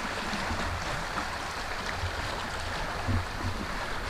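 Steady rushing wash of water at the shoreline.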